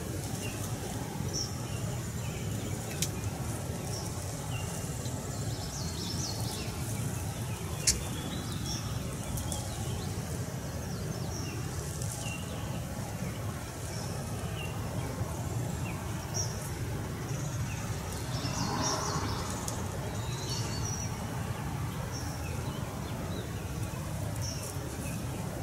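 Spring woodland ambience: scattered short chirps of songbirds over a steady low rumble, with two sharp clicks a few seconds in and a brief lower call about three-quarters of the way through.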